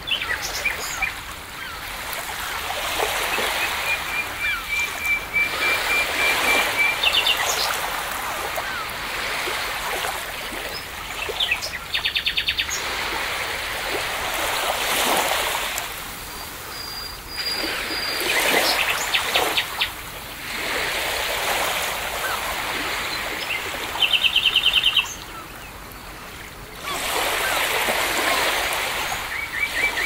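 Waves washing in and out in repeated swells, with songbirds chirping over them: a run of even high notes a few seconds in, and rapid trills about twelve seconds in and again near twenty-five seconds.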